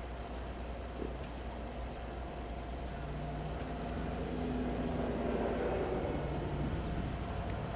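A distant engine hum that swells about four seconds in and eases off near the end, over a steady low rumble.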